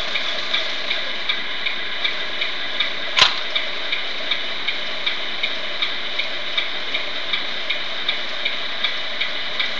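Small hydraulic pump of an RC garbage truck running steadily as it drives the compactor, a continuous hiss with a regular tick about three times a second. One sharp, louder click comes about three seconds in.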